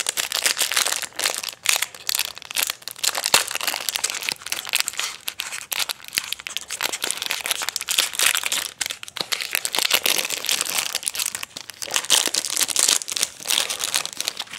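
Plastic wrapper on a pack of basketball trading cards crinkling and crackling continuously as it is worked open and pulled off the stack of cards by hand.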